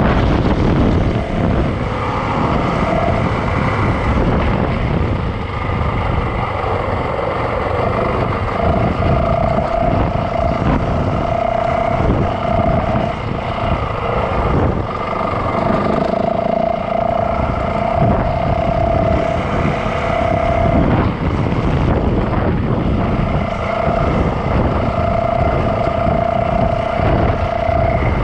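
Yamaha dirt bike engine running under way on a dirt trail, heard from a camera mounted low on the bike, with rough-ground rumble and wind on the microphone. The engine note holds steady for stretches and drops away between them as the throttle changes.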